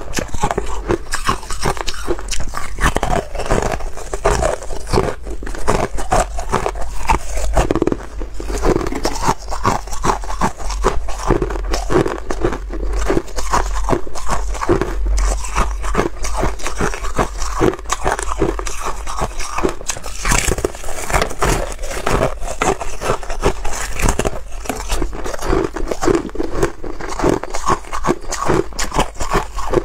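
Frozen cola ice being bitten and chewed, close to the microphone: a dense, continuous stream of sharp cracks and crunches as the hard ice breaks between the teeth.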